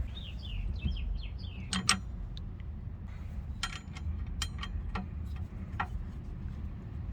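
A bird chirping a quick run of short, falling notes at the start, then scattered sharp metallic clicks and clinks of tools and suspension parts being handled, over a steady low rumble.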